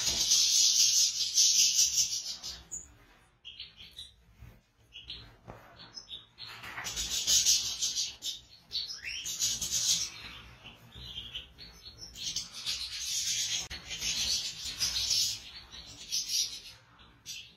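European goldfinches twittering and singing in dense high-pitched bursts of a few seconds each, with quieter gaps between them.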